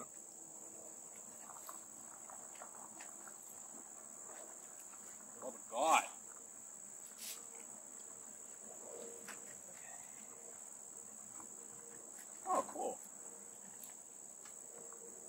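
A steady, high-pitched chorus of insects such as crickets, droning without a break. Two short, louder voice-like sounds stand out, about six seconds in and again near twelve and a half seconds, with a single faint click in between.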